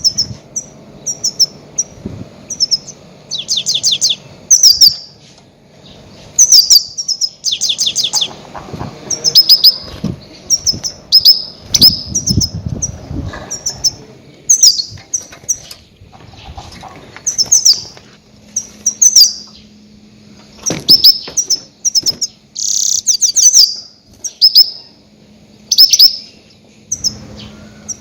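Goldfinch giving loud, short high chirping calls in quick clusters about every second: a call used as a lure to draw in grey-headed goldfinches.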